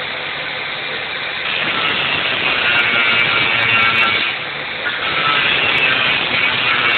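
Handheld angle grinder running, its disc grinding into a metal frame; the grinding gets louder about a second and a half in, drops back briefly around the middle, then resumes.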